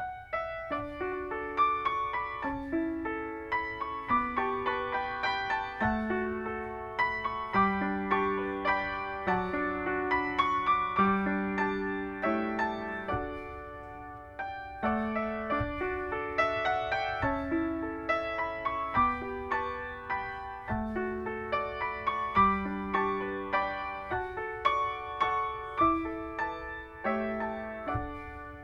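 Solo piano playing a slow, gentle piece, each note struck and left to ring, in an even flowing pattern with a short lull between phrases about halfway through.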